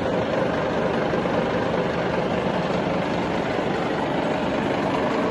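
Sachman bed milling machine running, a steady mechanical hum.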